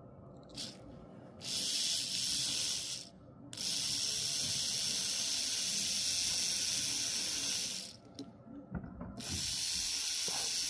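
Small electric motor with a freshly soldered armature running with a steady high hiss in three spells, stopping briefly between them as its direction is reversed.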